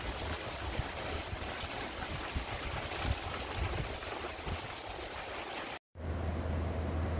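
Steady rushing of water during a storm, then, after an abrupt cut near the end, a low steady rumble.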